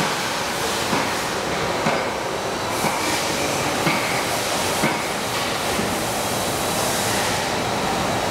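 RY850 paper-cup printing machine running: a steady mechanical noise of rollers and web, with a light knock about once a second that stops about five seconds in.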